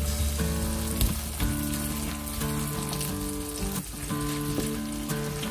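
Tuna and chopped tomato sizzling in oil in a nonstick frying pan, stirred with a wooden spatula that scrapes the pan a couple of times. Soft background music with sustained notes runs underneath.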